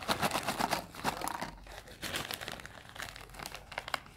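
Crinkling of a plastic potato chip bag as it is handled, with chips tipped out onto a tray. A dense run of crackles, loudest in the first second, thinning out toward the end.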